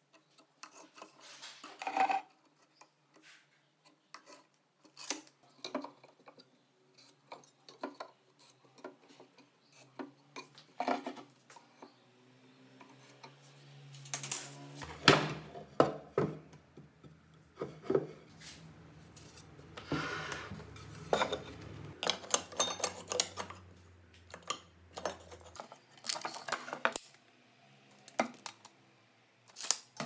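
Workbench handling noises: scattered knocks, clicks and rubbing as a wooden bar, a steel tape measure and a marker are handled and set down.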